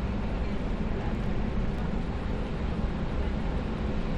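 Steady city street noise, a low rumble of wind buffeting the microphone over traffic, with no distinct events.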